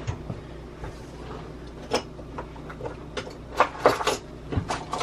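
Light knocks and clatters of kitchen things being handled, with a cluster of sharper clicks about three and a half to four seconds in.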